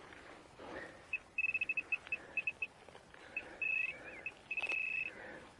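Metal detector signalling a target: a run of short, quick high beeps, then longer held tones, all at the same pitch. A single sharp click about four and a half seconds in.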